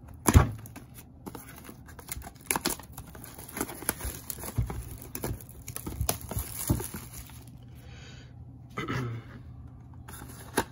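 A trading-card blaster box being unwrapped and torn open by hand: a sharp knock about half a second in, then irregular crinkling and tearing of wrapper and cardboard.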